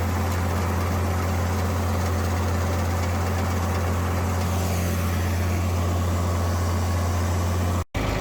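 John Deere 4020 tractor running at a steady engine speed, a loud, even low drone, with a brief dropout near the end.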